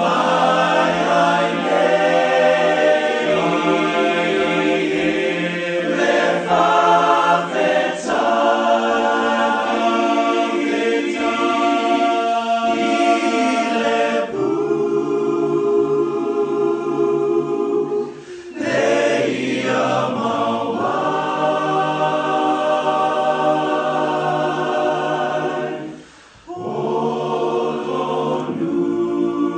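A cappella choir of mostly men's voices singing in sustained harmony, with a brief break about eighteen seconds in and a short pause between phrases near the end.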